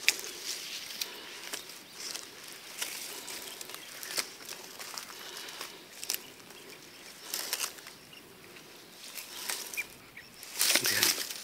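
Footsteps and rustling through grass and brush as a person walks, irregular brushing and crackling, with a louder burst of rustling near the end.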